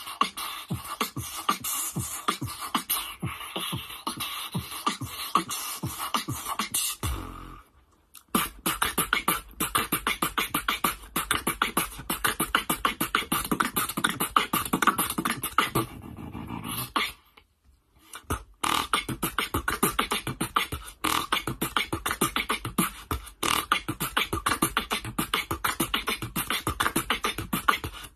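Solo human beatboxing: a fast, dense run of mouth-made percussive hits with a low bass tone underneath for part of it. The rhythm stops briefly twice, about 8 and 18 seconds in, and then resumes.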